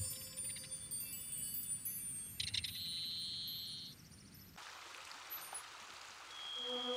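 Ambient music of chiming, ringing struck tones over held notes. About four and a half seconds in, it gives way to the steady rush of river rapids, and new held tones come in near the end.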